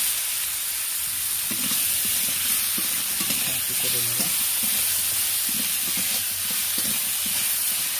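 Raw potato wedges with chopped tomato and green chilli sizzling steadily in hot oil in a wok while a metal spatula stirs them through, mixing in turmeric and salt.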